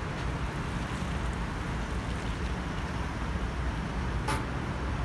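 Steady, distant low rumble of a Boeing 737-800's CFM56-7B turbofan engines as the airliner flies over, with one short sharp sound about four seconds in.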